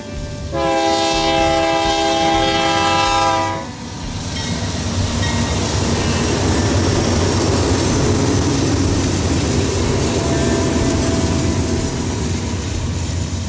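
A BNSF freight train's multi-chime air horn sounds one long chord blast of about three seconds, starting about half a second in. Its GE diesel locomotives then rumble past close by, with engine drone and wheel clatter on the rails.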